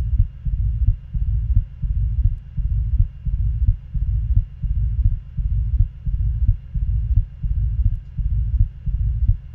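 Recorded heart sounds through a stethoscope with a diastolic murmur: each beat has S1 then S2 close together with no murmur between them, and after S2 a murmur fills the pause until the next S1. The beats repeat steadily, a little more than once a second.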